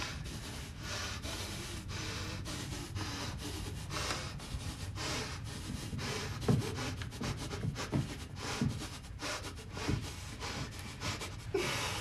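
A man crying without words: heavy, ragged breaths and sniffs, with short low sobs in the second half.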